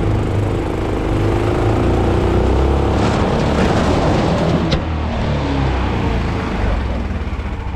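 Small outboard motor on an aluminium dinghy running steadily as it pushes the boat up a shallow, gravel-bottomed creek.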